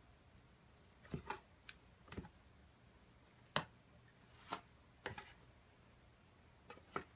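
Scattered faint clicks and taps, about ten spread unevenly over several seconds, the loudest about halfway through, against a quiet background.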